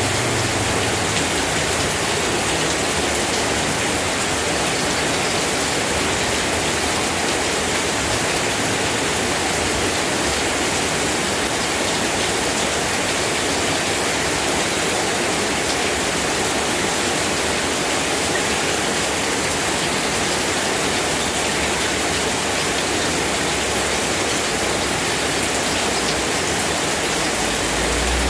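Steady rain falling: an even, unbroken hiss of water with no separate drops or pauses standing out.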